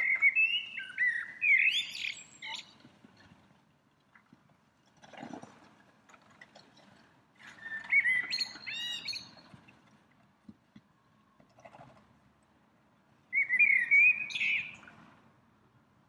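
A perched songbird singing three separate phrases a few seconds apart. Each phrase is a warbling run of whistled notes that ends in higher twittering.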